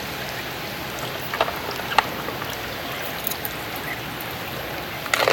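Steady rushing of river water, with a few faint clicks; splashing begins right at the end.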